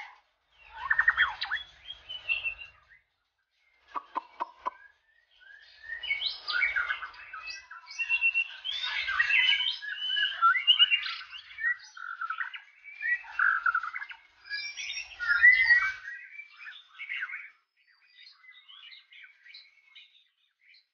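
White-rumped shama singing a long, varied song of rich whistled phrases and fast chattering notes. A brief run of quick clicking notes comes a few seconds in. The song is loudest and densest in the middle, then trails off into faint, scattered notes near the end.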